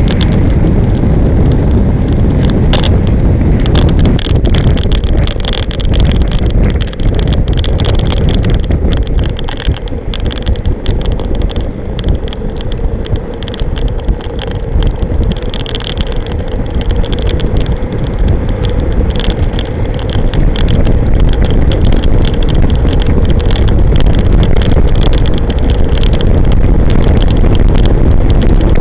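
Wind blasting the microphone of a camera on a moving kite buggy, a loud low rumble, mixed with the knocking and rattling of the buggy's frame and wheels rolling over beach sand.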